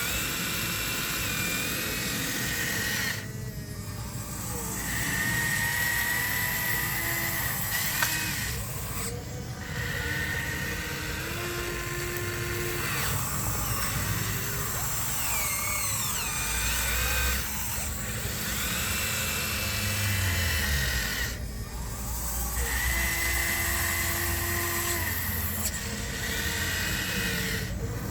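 Electric motors and hydraulic pumps of radio-controlled model construction machines whining as they work. The whine keeps changing pitch as the motors speed up and slow down, and drops out briefly a few times.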